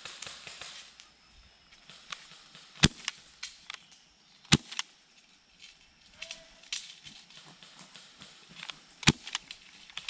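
Scattered airsoft gunfire: single sharp cracks at uneven intervals, the loudest about three and four and a half seconds in, with fainter snaps and clicks between them and another crack near the end.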